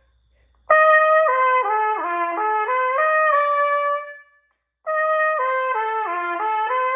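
Trumpet playing a short slurred étude passage twice: a run of connected notes stepping down and back up that ends on a held note, then after a brief pause the same phrase again.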